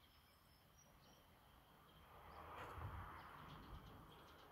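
Near silence: faint outdoor background hiss that swells briefly in the middle, with a few faint, short high chirps in the first second.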